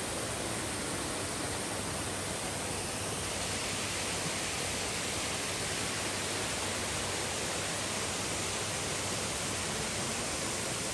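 Waterfall pouring into a rocky pool: a steady, unbroken rush of water.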